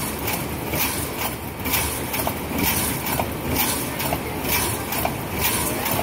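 Cannery packing-line machinery running steadily, a conveyor carrying open tuna cans into a canning machine, with a regular mechanical clatter and hiss about twice a second.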